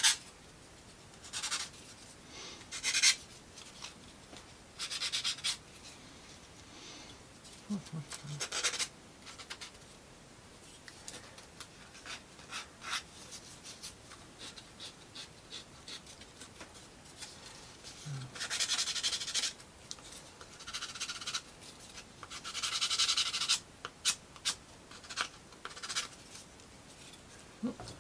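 Plywood model-kit parts being handled and fitted together: intermittent short scratches and rubs of wood on wood with sharp clicks, and two longer scrapes of about a second each past the middle.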